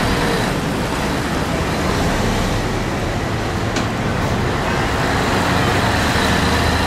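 Diesel engines of military trucks driving past one after another, a steady low engine drone mixed with tyre noise.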